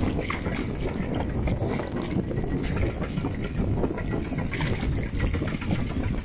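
Mini tractor's engine running steadily, a dense rapid chugging that carries on without a break.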